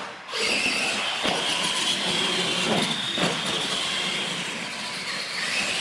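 Electric R/C monster trucks launching together and running flat out, a high whine of motors and gears over a rushing noise. The whine starts suddenly about half a second in, then sags and climbs again near the end.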